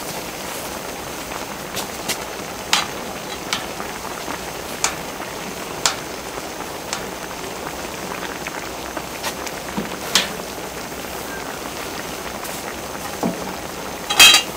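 Pork and kimchi stew boiling in a wide cast-iron cauldron lid, a steady bubbling hiss with scattered sharp pops. A louder sharp clatter comes near the end.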